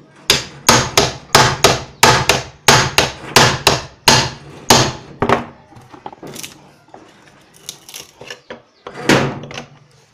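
Hammer blows on a thin steel punch held against the wooden handle of an old butcher knife: a quick run of about sixteen sharp metal strikes, roughly three a second, then a few lighter, scattered taps with one harder blow near the end.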